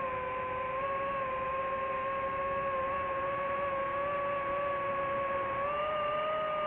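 Multirotor drone's propellers and motors humming steadily in flight, a whining tone over a rushing noise, its pitch rising a little near the end as the motors speed up.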